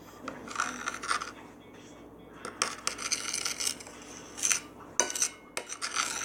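Slime being mixed in a bowl: irregular bursts of scraping with a few sharp clinks, like a utensil knocking against the bowl.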